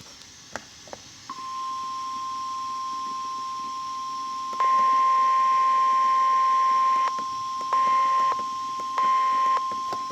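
NOAA Weather Radio's 1050 Hz warning alarm tone: a steady high-pitched tone that starts about a second in, signalling an alert for a severe thunderstorm watch. From about halfway through, a louder buzzing beep from the receiver's own alarm sounds over it, cutting out and back in three times near the end.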